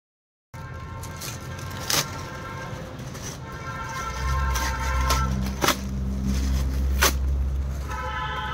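Street noise that starts half a second in: a vehicle engine rumbling, growing stronger midway, with several sharp clicks and stretches of a held buzzing tone.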